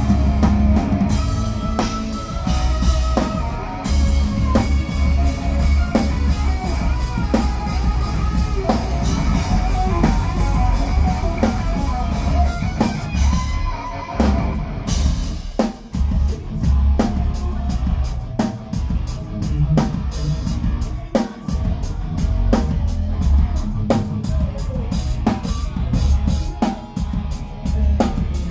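Live hard rock band playing, heard from close to the drums: a Pearl Reference drum kit with heavy kick drum and cymbals, over distorted electric guitars. About halfway through the guitars thin out, leaving mostly drums keeping a steady cymbal beat.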